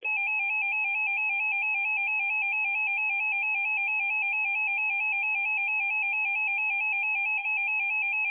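Emergency Alert System attention signal: a loud, harsh steady two-tone sound that starts abruptly and holds without a break. It announces that an emergency alert is about to be read.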